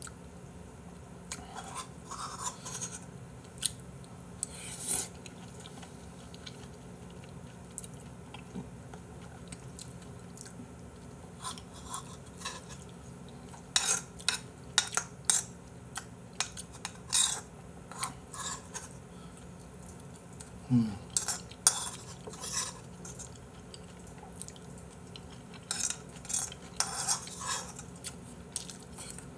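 Metal spoon clinking and scraping against a small bowl of rice and beef gopchang stew while eating, in irregular sharp clicks that come in bunches about halfway through and again near the end, with chewing between them.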